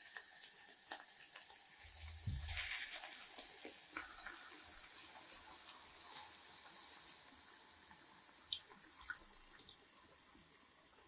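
Sliced mushrooms and onion sizzling in an enamel saucepan, a steady hiss with small pops and crackles. Canned tomatoes are poured in partway through, and the sizzle slowly fades.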